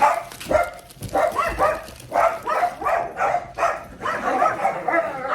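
Cavapoo puppy giving a run of short, high-pitched yelps and whines, several in quick succession.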